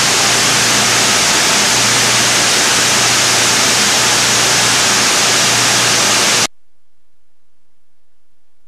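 Steady, loud hiss of a running plastic pelletizing line's fans and blower, with a faint low hum beneath. It cuts off suddenly about six and a half seconds in, leaving only a faint background.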